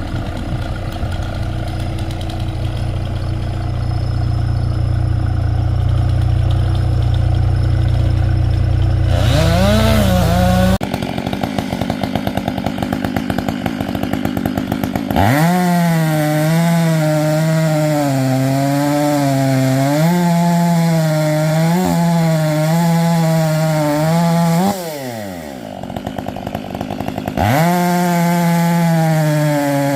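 Stihl two-stroke chainsaw cutting poplar: it idles with a fast rhythmic putter, then runs at full throttle with its pitch wavering and dipping as the chain takes load in the wood. About 25 seconds in it drops back to idle, then is opened up again near the end. A steady low rumble fills roughly the first ten seconds, before the saw revs up.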